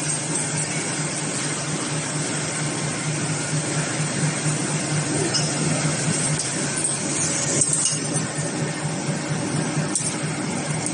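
Chain link fence making machine running: a steady mechanical noise with a constant low drone and a few faint clicks.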